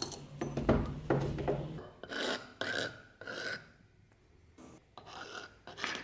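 Rubbing and scraping on a small anvil as it is handled and cleaned, in uneven strokes. The strokes are loudest in the first two seconds, followed by a few shorter ones.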